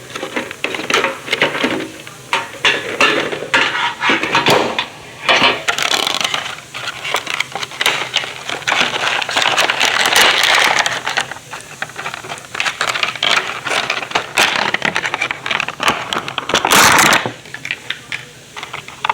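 Irregular clicking, clinking and rustling as a metal Bakugan tin and its plastic and metal contents are handled and unpacked, with a louder, longer rustle near the end.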